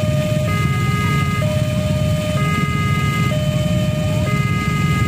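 Railway level-crossing warning alarm sounding a two-tone electronic hi-lo signal that switches tone about once a second. Underneath it is the low, steady running of many idling motorcycle engines.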